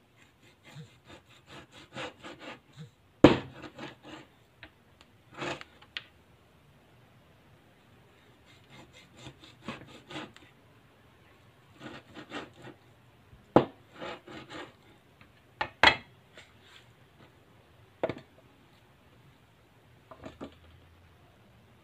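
A cleaver saws back and forth through a rack of lamb between the rib bones on a cutting board, in runs of short rasping strokes. Several sharp knocks come as the blade chops through and strikes the board.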